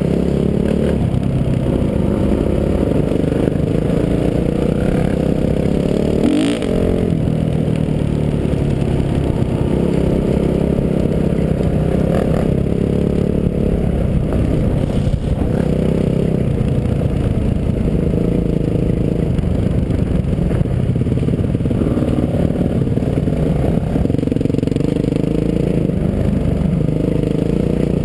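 Dirt bike engine running close to the microphone, its pitch rising and falling with the throttle, over a rough rumble and rattle from riding a gravel and dirt trail. A sharp knock comes about six seconds in.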